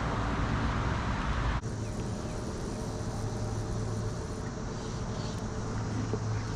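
A steady low hum over outdoor background noise, with an abrupt change in the sound about one and a half seconds in.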